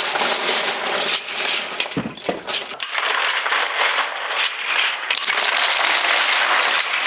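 Towers of wooden building blocks collapsing: a dense, loud clatter of many wooden blocks tumbling and knocking against each other and the floor.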